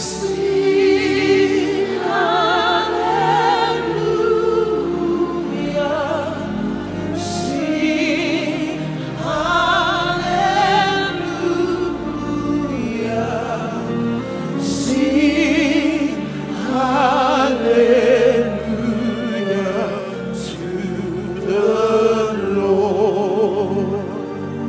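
Slow gospel worship music: singing voices with a wide vibrato, in long phrases, over sustained keyboard chords.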